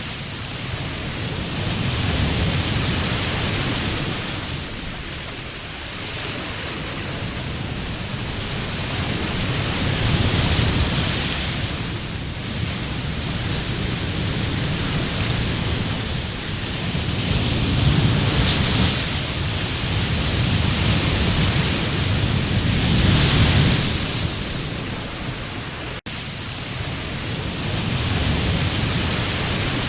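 Sea surf breaking on a sandy beach, a steady wash that swells with each wave every few seconds, with a momentary break in the sound near the end.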